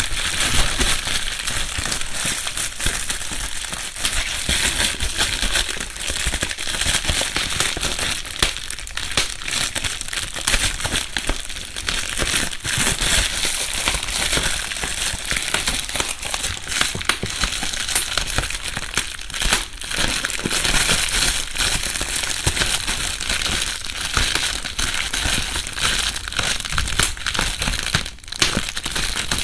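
Plastic bubble wrap being crumpled and squeezed, a continuous rustling crackle dotted with many small pops, with a brief lull near the end.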